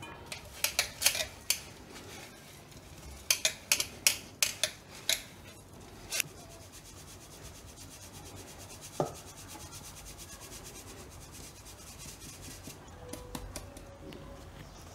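A metal mesh sieve is shaken and tapped over a steel bowl as ground cashew powder is sifted through it. Quick runs of sharp metal taps come in the first six seconds and a single knock about nine seconds in, with a soft steady rasping of powder rubbing through the mesh between them.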